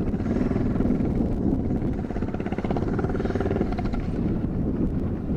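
Motorcycle engine running steadily with a rapid, even pulsing as the bike rides along a dirt road.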